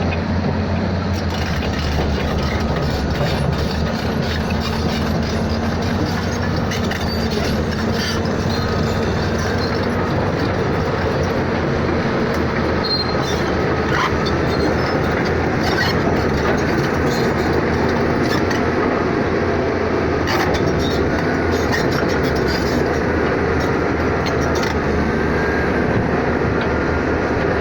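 Steady rumbling noise of a moving vehicle, with scattered light clicks and, in the second half, a faint wavering whine.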